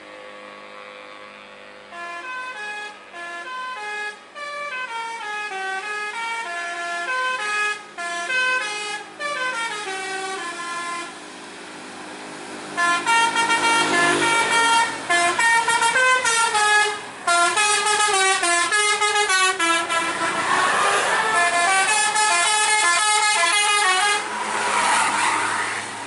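Telolet bus horn (a Basuri multi-tone air horn) on a tour coach, playing rapid stepping tunes of several tones at once. A quieter run of tunes is followed about halfway through by a louder one.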